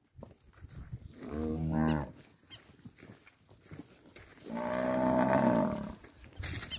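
Zebu cattle mooing twice: a short moo a little over a second in, then a longer, louder moo about halfway through.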